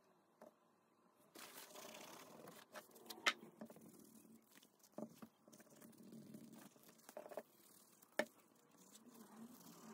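Wooden edge slicker rubbed back and forth along the edge of a leather wallet, burnishing it. A faint rubbing starts about a second and a half in, with a few sharp clicks of the tool and wallet being handled.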